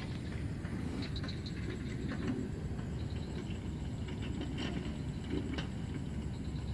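Outdoor ambience at a canal bank: a steady low rumble, with a few faint high chirps of birds or insects over it.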